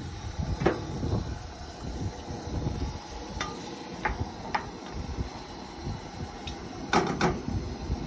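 A wooden spoon stirring in a steel pot on a camp stove, knocking and scraping against the pot in a few light clicks, with two sharper knocks about seven seconds in. Wind buffets the microphone in a steady low rumble underneath.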